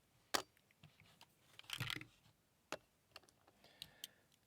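Metal fidget sliders clicking as they are handled and set down on a board: about half a dozen sharp, irregularly spaced clicks and taps, with a small cluster near the middle.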